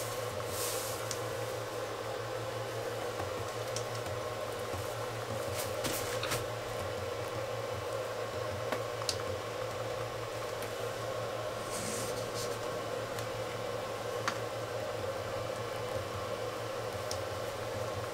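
A steady fan-like mechanical hum, with a few faint brief clicks and scuffs now and then.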